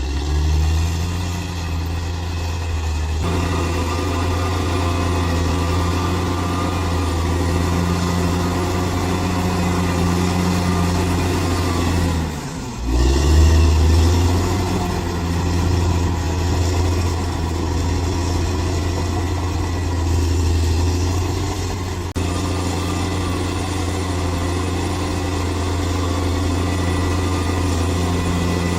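Bulldozer's heavy diesel engine running steadily. About twelve seconds in, the revs dip briefly, then pick up again louder.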